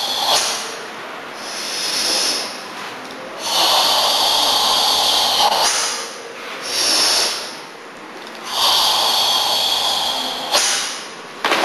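Forceful karate kata breathing: two long, loud hissing breaths, each about two seconds, alternating with quieter breaths between them, the controlled ibuki-style breathing of the Tensho kata. A few short clicks come right at the end.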